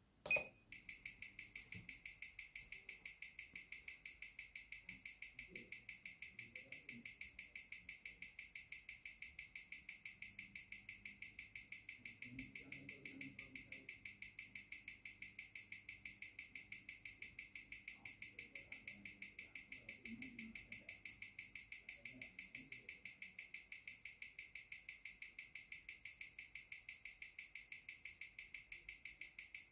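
Seiko SBDC001 Sumo's 6R15 automatic movement ticking steadily at six beats a second (21,600 beats an hour), the escapement's ticks picked up and amplified by a timegrapher, after a single click of the timegrapher's start button about half a second in. The movement is running at a low amplitude of about 180 degrees, which the owner puts down to poor factory lubrication.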